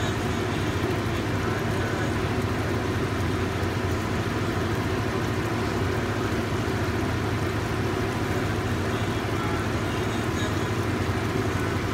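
Steady mechanical noise with a low hum, even and unchanging, with no distinct knocks or clicks.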